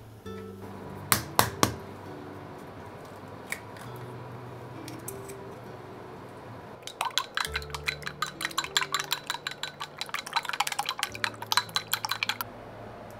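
Eggs being cracked into a glass bowl, a few sharp knocks about a second in. Later, wooden chopsticks beat the eggs in the bowl, a rapid clicking against the glass for about five seconds that stops shortly before the end.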